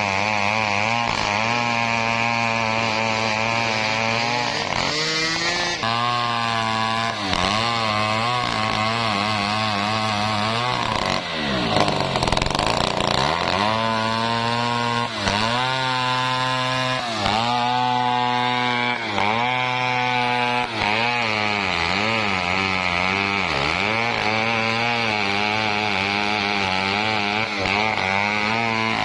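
Stihl 070 two-stroke chainsaw ripping lengthwise through a teak log. The engine pitch sags and recovers over and over as the chain bites, dropping deepest about twelve seconds in.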